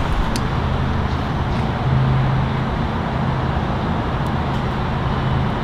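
Steady low vehicle hum with traffic noise, and a few faint clicks.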